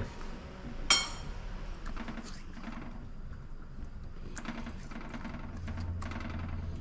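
A single sharp metallic clink about a second in, then a few faint taps as utensils and a wire rack are handled in a stainless-steel sink. A low hum comes up near the end.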